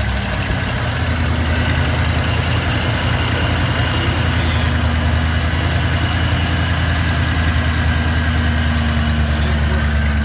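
A 1990 Ford F-150 pickup engine idling steadily just after a cold start, having sat for two and a half days.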